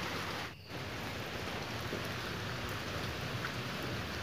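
Steady rain falling on wet concrete and puddles, an even hiss with a brief drop-out about half a second in.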